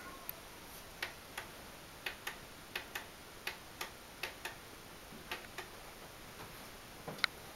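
A series of light, sharp clicks at irregular intervals, often in close pairs, with one louder click near the end.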